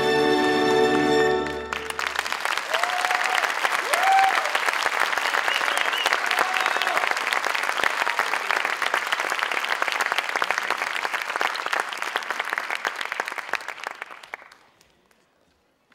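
Music stops about two seconds in and an audience breaks into applause, with a few short cheers rising above the clapping. The applause dies away about a second before the end.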